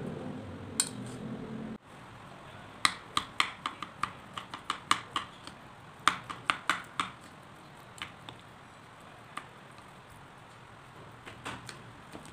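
Wooden spoon knocking against a bowl while mashing boiled potato chunks: a quick run of sharp taps and clicks, then a few scattered ones. Before that, a dull low rumble that cuts off abruptly about two seconds in.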